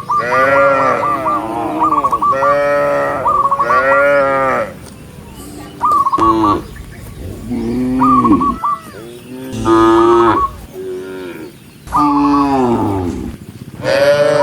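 Cattle mooing repeatedly, about eight loud calls in quick succession. Each moo falls in pitch, and several begin with a short wavering high note.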